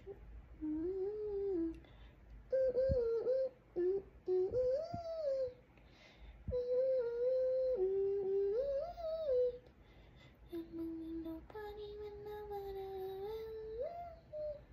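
A person humming a wavering tune in short phrases with brief pauses between them, and a couple of light knocks.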